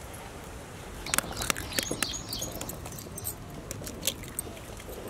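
Hard-boiled eggshells being cracked and peeled by hand over a glass bowl: a run of small crackles and clicks, busiest about a second in, with bits of shell ticking into the bowl.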